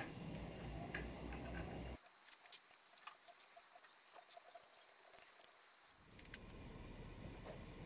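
Faint clicks and scrapes of a hand tap cutting threads into a small metal bushing. A steady low hum sits under it for the first two seconds and comes back about six seconds in.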